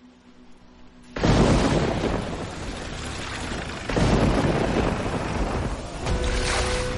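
A sudden crack of thunder about a second in, then a heavy downpour of rain, with another thunder surge a few seconds later.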